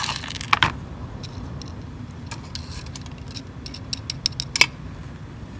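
Small rocks clicking and clinking against each other as they are handled and set in place, a scatter of sharp clicks with a brief scraping rustle about half a second in and a quick run of clicks near the end.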